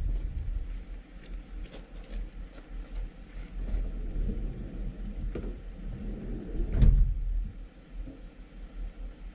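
A few light knocks, then a Ram ProMaster delivery van's door shutting with a loud thud about seven seconds in, over a steady low rumble.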